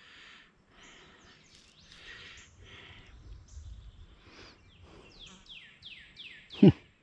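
Outdoor riverside ambience with gusts of wind rumbling on the microphone, and a bird calling a quick run of about six short falling notes near the end. A brief loud sound stands out just before the end.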